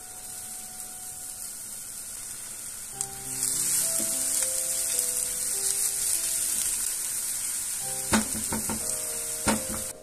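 Chopped onion sizzling in hot oil in a nonstick frying pan, the sizzle growing louder about three seconds in. A wooden spatula stirs the onion, with several sharp knocks of the spatula against the pan near the end.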